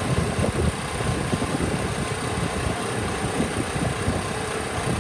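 A steady engine-like running noise with faint constant hum tones, and an uneven low rumble underneath.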